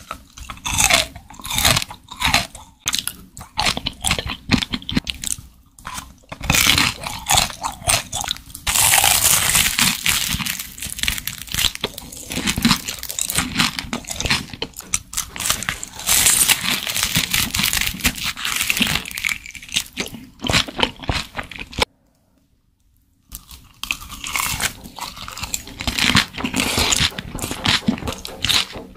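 Close-miked crunching and chewing of crispy deep-fried beef large intestine (daechang): repeated crackling bites and dense runs of crunching. It stops for about a second and a half three-quarters of the way through, then starts again.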